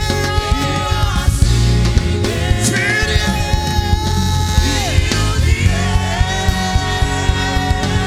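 Gospel worship music with a band: a sung voice holding long, gliding notes over steady bass and drums.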